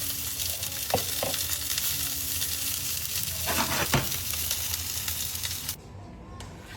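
Fish, vegetables and butter frying in a hot pan, with a steady sizzle and a few light utensil sounds; the sizzle cuts off suddenly near the end.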